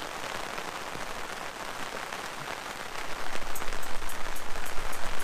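Heavy rain drumming on the fabric canopy of an angler's brolly shelter, heard from inside. The patter grows louder about three seconds in, with quick sharp drop ticks.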